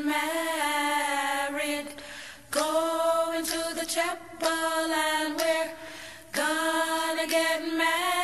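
A recorded song: a vocal group singing long held notes in close harmony, with short breaths between phrases about 2 and 6 seconds in.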